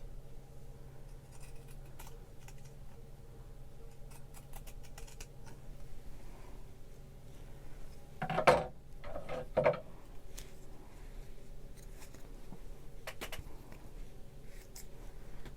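Scissors snipping through fabric, cutting into a sewn seam allowance in short, scattered clicks, with a louder pair of snips about eight and a half and nine and a half seconds in.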